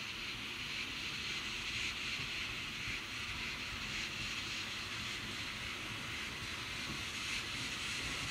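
Steam locomotive moving off slowly, with a steady hiss of steam from its open cylinder drain cocks over a low rumble.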